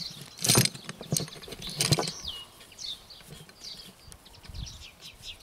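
Cord and rope rustling and rubbing as a Klemheist friction knot is wrapped and dressed by hand, with two louder handling sounds about half a second and two seconds in. Small birds chirp throughout.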